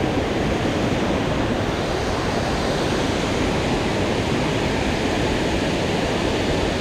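A waterfall's water rushing steadily, an even loud noise with no breaks.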